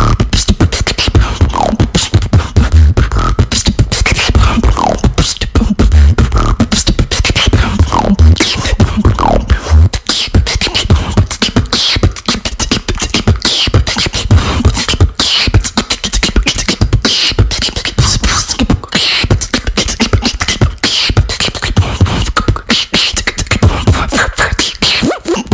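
Solo human beatboxing: a fast, dense rhythm of vocal kick drums with deep bass hits, sharp snare and hi-hat clicks, and short gliding whistle-like vocal sounds layered over it.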